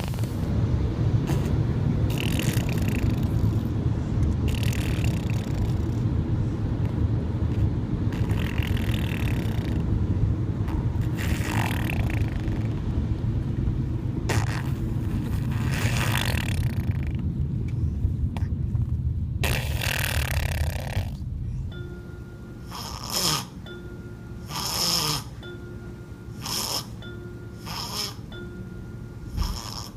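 A baby snoring, a rasping breath every three or four seconds over a steady low rumble. About two-thirds of the way through this gives way to gentle chiming music.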